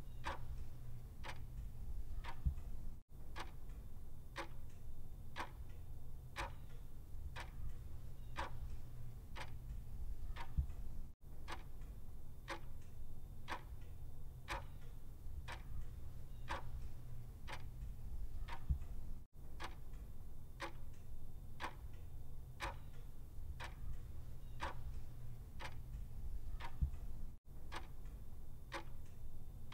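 Clock ticking evenly, a little faster than once a second, over a steady low hum. The ticking breaks off for an instant about every eight seconds.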